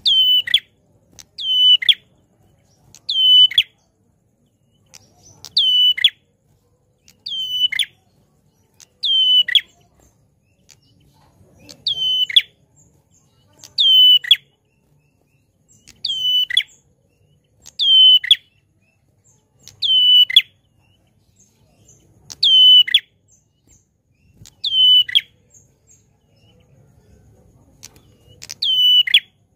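Ashy tailorbird (prenjak klawu) calling loudly: a sharp note that sweeps steeply down in pitch, repeated about every two seconds.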